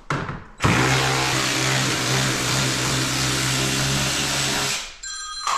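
Cordless drill driving a self-tapping screw to fasten a plastic mud guard, a short burst and then a steady whine for about four seconds. A phone starts ringing near the end.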